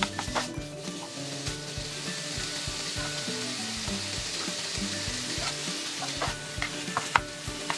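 Diced chicken and garlic sizzling in a nonstick frying pan while a plastic spatula stirs and scrapes them, with scattered sharp clicks of the spatula against the pan, the loudest a little after seven seconds in.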